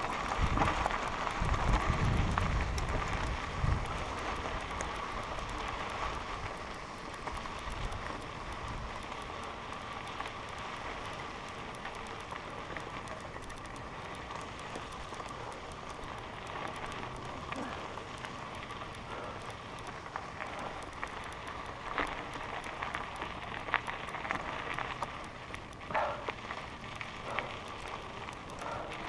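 Mountain bike rolling along a loose gravel trail: tyres crunching and the bike rattling over stones, with a few sharper knocks from bumps near the end. Wind rumbles on the helmet-mounted microphone for the first few seconds.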